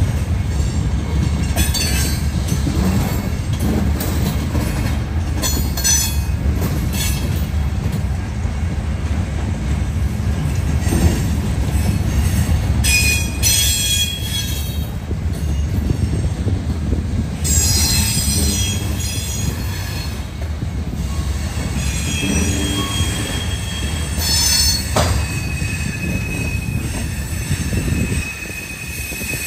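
Loaded covered hopper cars of a grain train rolling slowly past with a steady low rumble of wheels on rail. High wheel squeals come and go, strongest in the second half, with scattered clanks. The rumble drops a little near the end.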